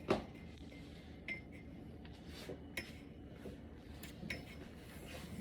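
Kitchenware being handled: a sharp knock at the start, then about five light clinks spread over the next few seconds.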